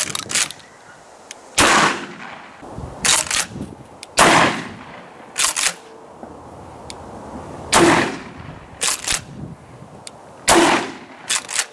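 Browning BPS 12-gauge pump-action shotgun firing four shots, roughly three seconds apart, each shot followed by the sharp double clack of the pump being worked back and forward.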